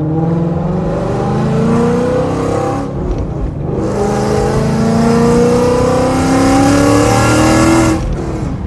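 2015 Ford Mustang GT's 5.0-litre V8 with Corsa long-tube headers and Corsa Extreme exhaust accelerating, its pitch climbing, dropping at a gear change about three seconds in, then climbing again before backing off near the end.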